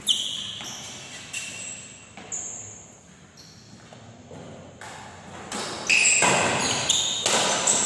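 Badminton rackets striking a shuttlecock, each hit a sharp ping from the strings with a short ringing tail. A few scattered hits come first, then a quick run of louder hits about six seconds in as a rally gets going.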